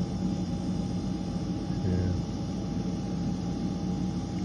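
Steady mechanical hum with a faint constant whine, from a running machine such as an engine or fan.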